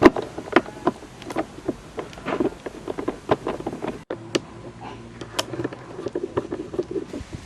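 Phillips screwdriver working screws out of a plastic door-handle bracket, with irregular clicks and light knocks of metal on plastic and handled trim parts, broken by a brief dropout about four seconds in.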